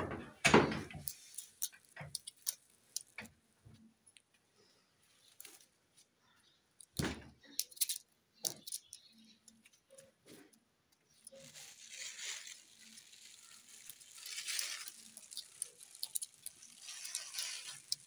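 An Indian ringneck parakeet moving about on a woven straw mat close by: scattered taps, clicks and scratches, with two louder knocks, one about half a second in and one about seven seconds in, and patches of rustling in the last few seconds.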